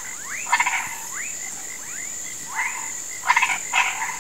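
Chorus of marsh frogs and toads croaking: short upward-sliding whistled calls repeat over and over, while louder rattling croaks come about half a second in and twice near the end. A steady high-pitched whine runs underneath.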